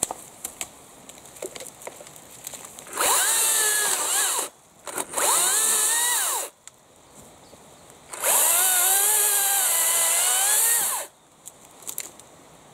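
Makita 36 V (twin 18 V) brushless battery chainsaw cutting through fallen branches in three bursts, the last about three seconds long. Its electric whine rises and falls in pitch as the chain works through the wood. Light clicks and rustles come between the bursts.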